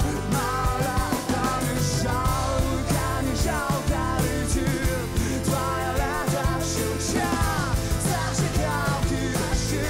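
A male lead vocalist sings with a live acoustic rock band: acoustic guitar, bass guitar and drums.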